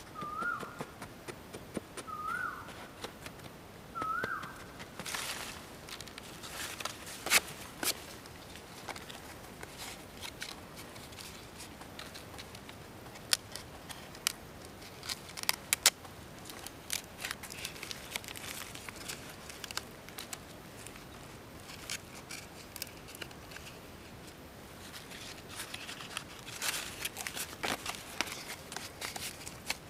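Hands folding fresh leaves around eggs in a woven bamboo basket: leaves rustling and crinkling, with scattered sharp clicks and snaps. In the first few seconds a bird gives a short rising call four times, about every two seconds.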